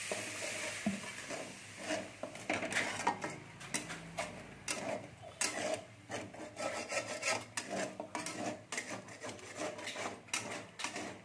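Steel spatula scraping and stirring a thick spice masala around a metal kadai: a run of irregular scrapes against the pan.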